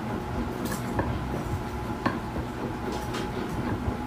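A metal spoon pressing and crushing bird's eye chilies in a glass bowl, with a few light clinks of spoon on glass over a steady low rumble.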